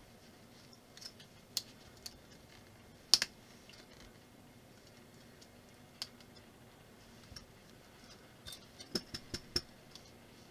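Plastic building bricks clicking as they are handled and pressed together: scattered sharp clicks, the loudest about three seconds in, and a quick run of several near the end.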